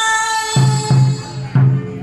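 Traditional ceremonial music: a held melodic note runs through the first second, then three deep drum strikes, the first two close together and the third about half a second later.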